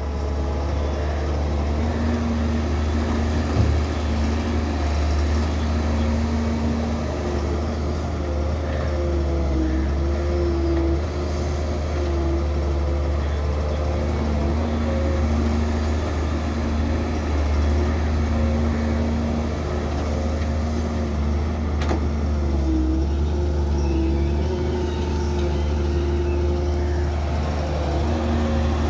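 Excavator's diesel engine running at a steady low drone, with higher whining tones that come and go as the machine works, and a single knock about four seconds in.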